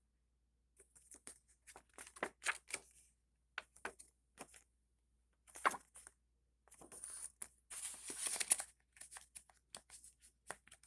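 Folded paper insert being handled and slid back into a plastic DVD case: paper rustling and crinkling with short taps and clicks. The longest stretch of rustling comes about seven to eight and a half seconds in.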